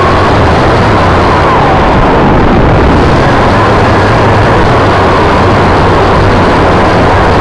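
A small drone's motors and propellers buzzing loud and close, heard from a camera mounted on the drone, with a thin whine that wavers up and down as the throttle changes.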